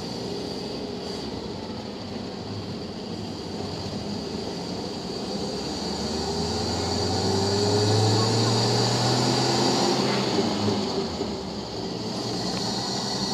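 Jeep engine running while driving, with road and wind noise; the engine note rises and gets louder through the middle, peaking about eight seconds in, then eases off.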